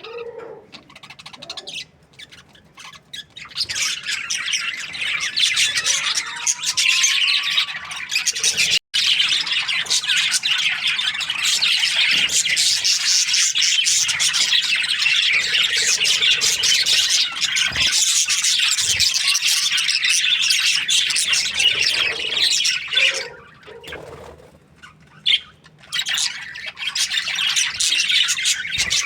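A group of budgerigars chirping and chattering together, many overlapping high calls. It starts up a few seconds in, falls to a short lull about three-quarters of the way through, then picks up again.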